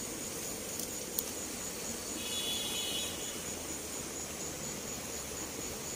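Quiet riverside ambience: a steady hiss with a faint high chirp pulsing evenly throughout, typical of an insect. There is a single faint click about a second in and a brief higher call about two seconds in.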